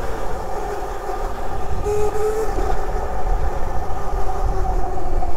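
Burromax electric minibike's motor whining steadily while riding, over a low wind rumble on the microphone. The whine slides down in pitch near the end.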